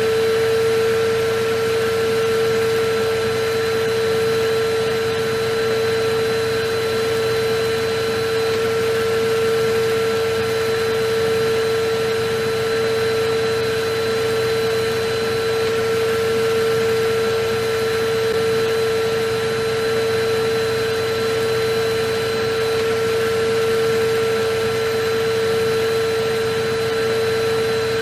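Vacuum cleaner running steadily: a constant motor whine over an even rush of air, with no change in speed.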